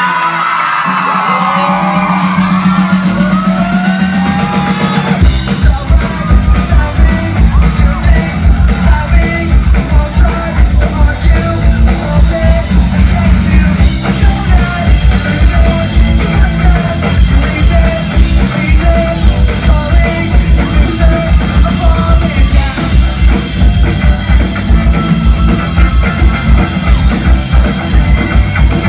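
Live pop-rock band playing loud with electric guitars, with fans yelling and whooping over a held low note at first. About five seconds in, the drums come in with a steady heavy beat that runs on under the guitars.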